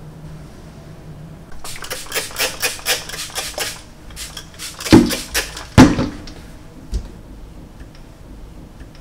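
Cloth rubbing a chrome kitchen faucet in a quick run of short scrubbing strokes. About five seconds in come two loud knocks a second apart, then a lighter click.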